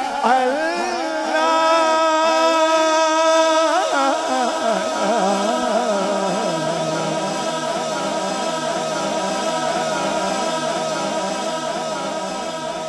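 Male naat reciter singing into a hand-held microphone over a sound system, without words the recogniser could catch. A long held note starts about a second in, then gives way to a wavering, ornamented vocal line that slowly gets quieter.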